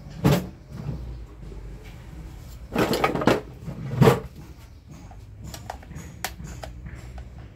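Electric fan parts being handled as the motor cover is removed: a few clunks and clatters, the loudest about four seconds in, then lighter clicks.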